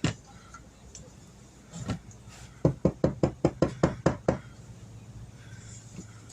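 Sharp knocks in a kitchen: one right at the start, another about two seconds in, then a quick run of about ten, some six a second, ending a little past four seconds.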